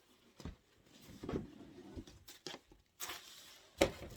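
Packaging being handled and opened by hand: scattered light taps and clicks, a stretch of rustling about three seconds in, and a sharp click just before the end.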